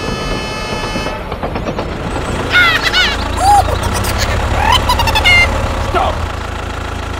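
Vehicle sound effects: a steady pitched tone cuts off about a second in. From about two and a half seconds a low, pulsing engine sound for the toy tractor runs under several short toots and chirping glides, and it fades out about six seconds in.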